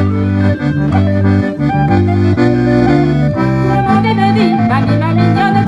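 Accordion playing a traditional Breton dance tune, with held bass chords changing about every second under the melody.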